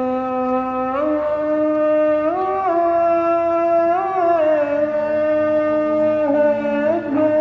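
Music: a slow melody of long held notes that slide smoothly from one pitch to the next, in a sustained, reedy, wind-instrument-like tone.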